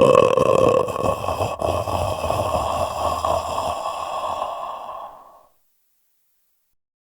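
A horror sound effect held for about five seconds, starting abruptly and fading out.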